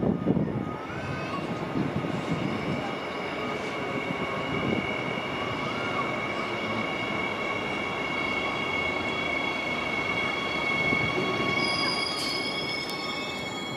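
Queensland Rail suburban electric multiple unit arriving slowly along the platform: steady rumble of wheels on rail with a steady high-pitched squeal, and a higher tone that dips slightly near the end.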